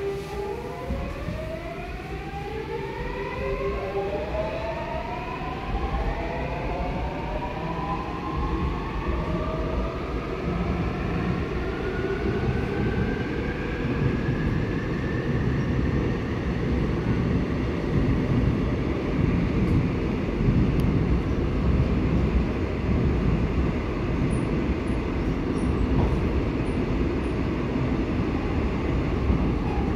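Seoul Line 8 subway train's GEC Alsthom GTO VVVF traction inverter whining as the train pulls away and accelerates, several tones climbing together in pitch over about the first fifteen seconds. After that the whine fades into the steady rumble of the car running at speed through the tunnel, heard from inside the car.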